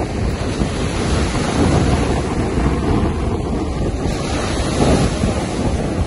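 Wind buffeting the microphone over the steady wash of choppy sea waves.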